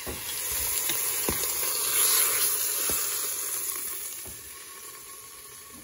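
Hot oil sizzling in the open inner pot of a Crock-Pot Express pressure cooker on its sauté (browning) setting, swelling about two seconds in and then fading, with a few light clicks.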